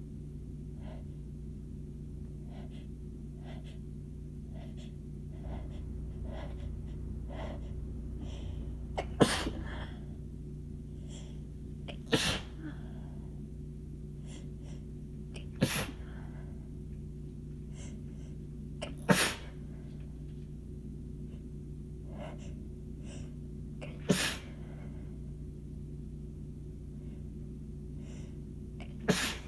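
A woman's sneezing fit: six forceful sneezes spaced a few seconds apart, each sudden and loud with a short breathy tail, starting about nine seconds in.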